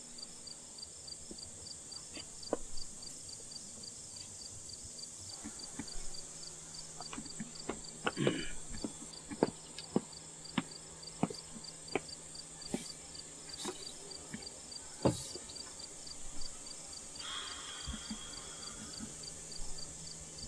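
Crickets chirping in a steady, even rhythm, with scattered sharp clicks and knocks over it, the loudest about fifteen seconds in.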